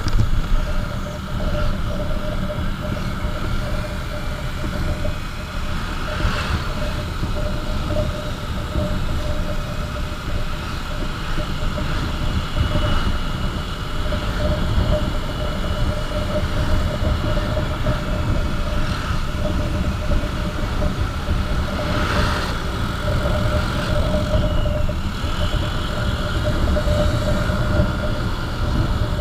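Motorcycle riding at road speed: heavy wind rumble on the helmet microphone over a steady engine drone, with brief louder noises about 6 and 22 seconds in.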